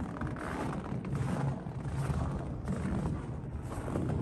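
Footsteps on a snow-covered walkway, with a steady low rumble underneath.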